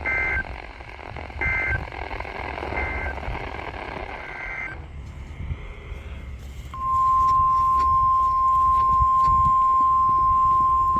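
NOAA Weather Radio over a static hiss, sending several short bursts of warbling SAME digital data tones. About seven seconds in, the steady, loud NOAA Weather Radio warning alarm tone starts and holds.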